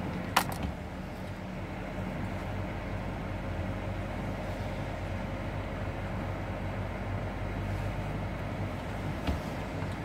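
Steady engine and road noise heard from inside a vehicle's cab as it drives slowly on a snow-covered road. There is a sharp click about half a second in and a fainter one near the end.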